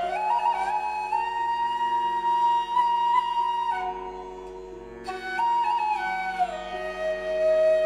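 Background music: a flute melody of long held notes over a steady drone, dipping quieter briefly around the middle.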